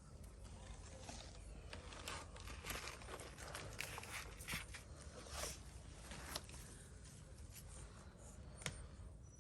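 Faint, irregular rustles and small clicks from handling, over a steady low background rumble.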